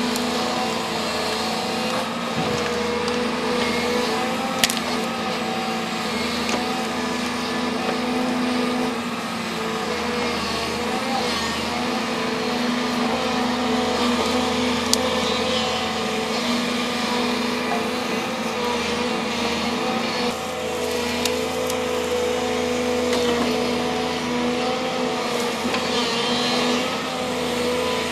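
Volvo excavator's diesel engine running steadily under working load, with a constant droning hum. Two sharp clicks, about five seconds in and about fifteen seconds in.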